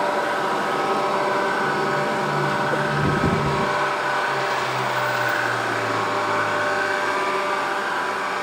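Electric RV power-awning motor running steadily as the awning extends, a level whine with a brief knock about three seconds in.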